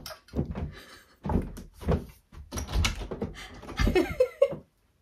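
A series of knocks and thumps on a wooden interior door as someone fumbles and bumps against it, with a brief laugh near the end.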